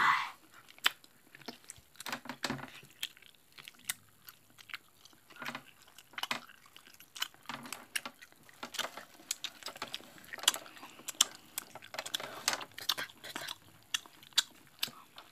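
Mozzarella string-cheese stick being chewed close to the microphone for ASMR: irregular soft, wet mouth clicks and smacks, coming thicker in the second half.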